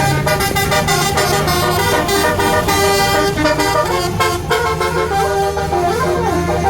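A Basuri musical horn playing a melody of shifting notes, telolet-style, with a pitch slide near the end over a steady low hum.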